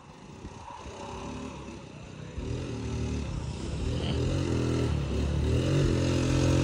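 1985 Honda ATC70 three-wheeler's small single-cylinder four-stroke engine running, faint at first and growing steadily louder from about two seconds in.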